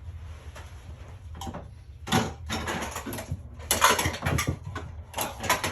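Plastic magnetic building tiles clattering and knocking together in a quick, irregular run of clicks as a pile of them tumbles over, starting about two seconds in, over a low steady hum.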